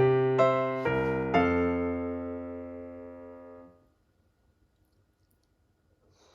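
Background piano music: a few notes and a final chord that rings and fades out, then near silence.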